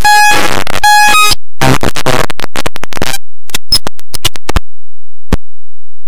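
Harsh burst of distorted electronic noise, with a short steady beep at the start and another about a second in, breaking up into a run of separate clicks that stops about five seconds in.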